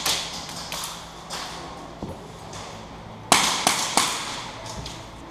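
Scattered sharp snaps of airsoft gunfire, with three in quick succession about three and a half seconds in.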